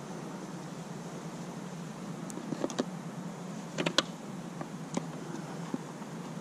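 A handful of short, sharp clicks and knocks, most of them bunched near the middle, from pole-fishing tackle being handled, over a steady low background hum.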